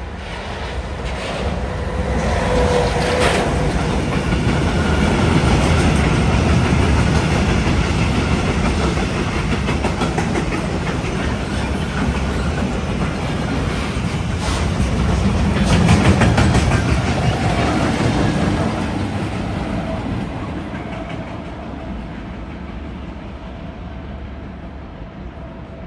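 A train passing by on the tracks: a rumble with wheels clattering over the rail joints. It builds over the first few seconds, is loudest about two-thirds of the way in, and fades away over the last several seconds.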